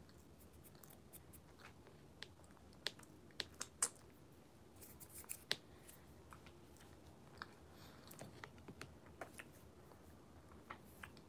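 Faint crunching of baked starch chunks being bitten and chewed, in irregular sharp crunches.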